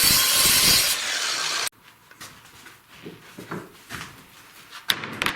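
A saw cutting through oriented strand board, loud and steady, stops abruptly under two seconds in. Light knocks and taps of the cut boards being handled follow.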